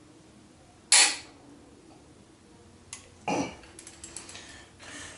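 A sharp crack about a second in as a tight RB25DET cylinder head bolt breaks loose under a ratchet levered with a length of pipe, followed by several shorter clicks and metallic knocks of the ratchet and tools.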